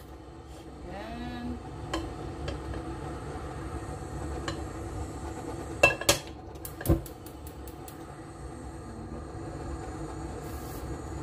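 A metal pot is set and shifted on a glass-top electric cooktop while it heats empty, giving a few sharp clicks and knocks, the loudest near the middle. A steady background hum runs throughout.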